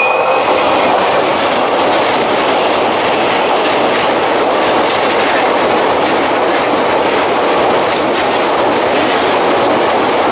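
Tokyu 2020 series electric commuter train passing close by, a loud steady rush of wheels on rail with a clatter as the cars roll over the rail joints. A high thin tone dies away in the first half second.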